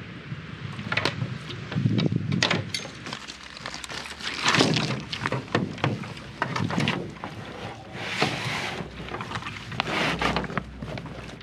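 Gear being loaded into a canoe: irregular knocks and clinks of items set against the hull, with rustling of packs and dry bags. Wind rumbles on the microphone underneath.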